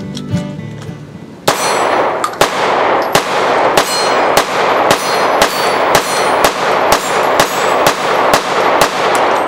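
Bersa TPR9c 9mm semi-automatic pistol firing a steady string of about a dozen shots, roughly two a second, each with a ringing tail. Background music fades out just before the first shot.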